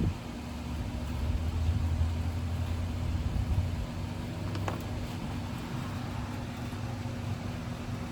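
Steady low electrical hum, louder for the first few seconds, with a faint click about four and a half seconds in.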